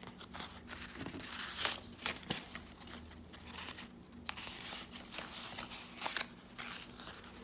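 Paper rustling and crinkling as sheets of collage paper and cardstock are handled and turned over, with a few short sharp clicks.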